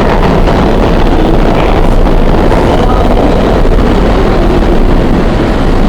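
NYC subway train running through the station: a loud, steady rumble with rail noise and no pauses.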